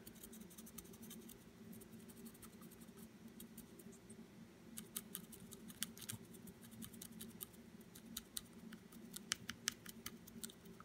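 Faint scratchy ticks of a stiff dry brush's bristles flicking across the raised details of a plastic miniature, coming in clusters about halfway through and again near the end, over a faint low hum.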